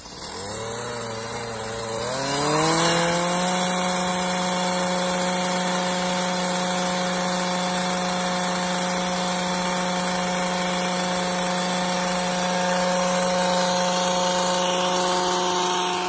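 Small handheld two-stroke petrol engine running unevenly at low revs, then revved up about two to three seconds in and held at a steady high speed.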